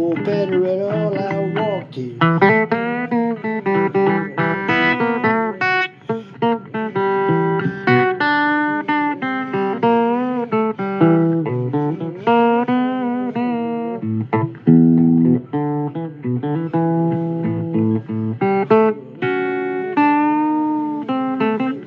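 Blues music playing: a guitar-led passage with bent, wavering notes.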